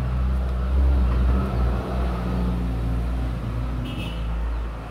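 A motor running steadily: a low hum with a deep rumble underneath.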